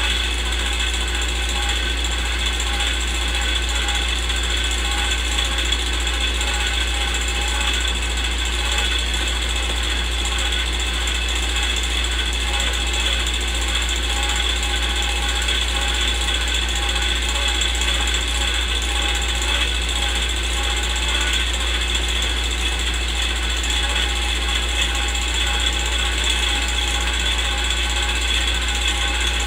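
Old film projector sound effect: the steady mechanical running of a movie projector, unchanging throughout, over a constant low hum.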